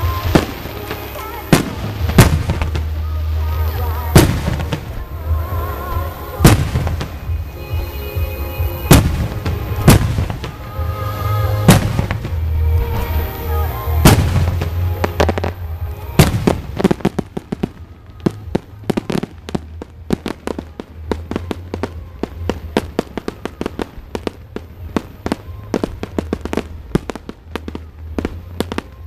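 Fireworks display: aerial shells bursting with sharp booms every one to two seconds, then, after about sixteen seconds, a dense rapid crackling of many small reports.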